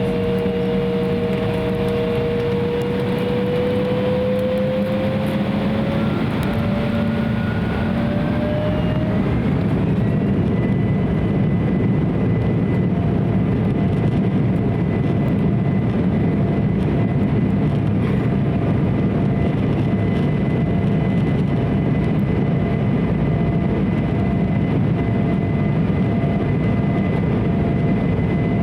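Cabin of an Embraer 170 as its two GE CF34 turbofans spool up to takeoff power. Their whine rises in pitch over the first eight or nine seconds, then holds as one steady high tone over a loud rumble of the takeoff run.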